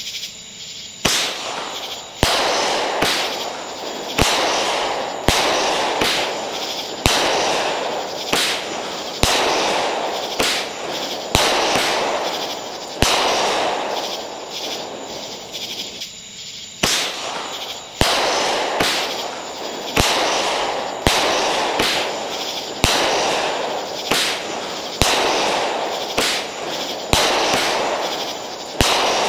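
A small seven-shot consumer firework cake (Sun's Fireworks Dalmatian) firing its shots one after another: a string of sharp bangs about once a second, each trailed by a fizzing crackle that fades, with a short lull partway through.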